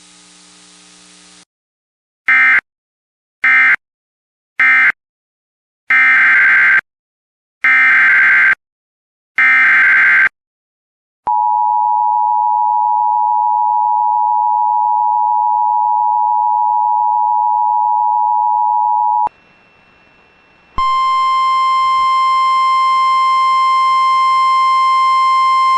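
Emergency Alert System tones. Three short data bursts (the end-of-message code) are followed by three longer SAME header data bursts, then the steady two-tone attention signal for about eight seconds. After a brief pause about twenty seconds in, a steady single-pitch weather radio alert tone sounds.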